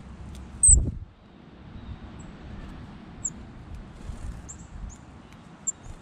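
Small songbirds giving brief, very high chirps several times, with one low thump about a second in, over a steady low rumble.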